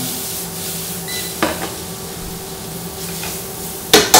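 Diced barramundi with shallots, garlic and chili sizzling in a frying pan, with a light metal clatter about a second and a half in. Near the end, two loud metal clanks from tongs striking the pan and pot.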